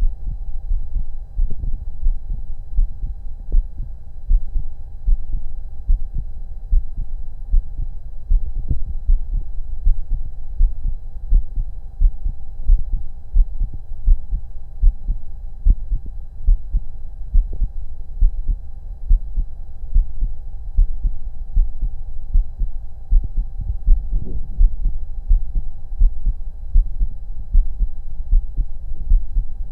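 A human heartbeat heard through a stethoscope: a steady rhythm of low, dull thumps, over a faint steady hum.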